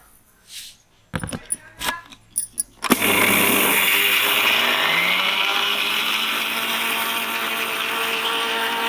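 A few knocks and clicks as the lid is fitted onto the steel jar of an electric mixer grinder, then about three seconds in the grinder switches on and runs steadily, its motor note rising as it spins up, grinding sugar into powder.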